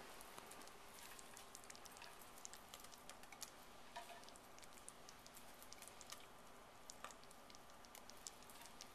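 Faint, scattered small ticks and taps of cut biscuit dough pieces being picked up by hand and dropped into a slow cooker of chicken mixture, over quiet room hiss.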